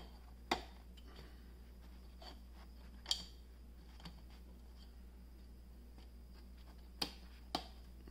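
3D-printed plastic rings being bent and worked together by hand, giving sharp plastic clicks as pieces snap into place. The four clearest clicks come about half a second in, at three seconds, and twice near the end, with faint handling ticks between.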